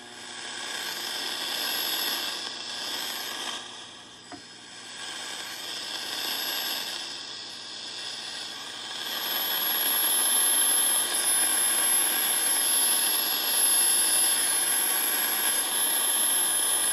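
Knight Space Spanner regenerative receiver hissing with shortwave static from its speaker while the regeneration and tuning knobs are turned, with no station coming through. A thin high whistle sits above the hiss, and the hiss dips briefly about four seconds in.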